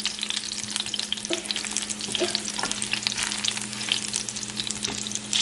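Minced garlic frying in hot oil in a pan, a steady crackling sizzle of many tiny pops, over a steady low hum. The garlic is at the stage of cooking until translucent, before the chicken goes in.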